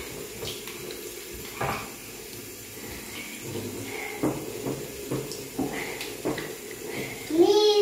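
Water running from a bathroom tap into the basin while hands are washed under it, with a few short sharp splashes and rubs of wet, soapy hands. Near the end a child's voice comes in.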